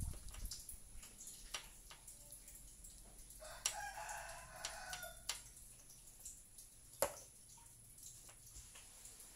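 A rooster crows once, a call just under two seconds long, about three and a half seconds in. Chess pieces are set down on the board with sharp clicks, the loudest a single knock about seven seconds in.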